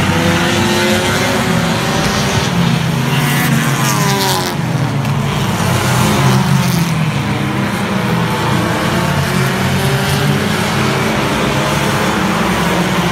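A pack of compact race cars running hard around an oval track, their engines droning together. Engine notes rise and fall as cars pass, with several sliding down in pitch about three to five seconds in.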